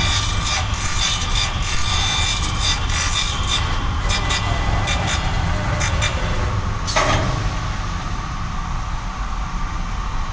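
CNC corner cleaning machine cutting, its cutters rasping and crackling over a steady motor rumble, then a short sharp burst about seven seconds in, after which only the machine's steady running hum remains.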